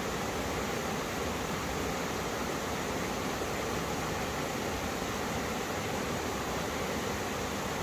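Mountain stream water rushing over rocks, two valley streams meeting in a steady, even roar of running water.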